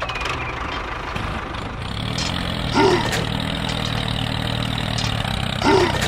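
Tractor engine sound running steadily at a low idle-like rumble, with two short squeaks that rise and fall in pitch, about three seconds apart.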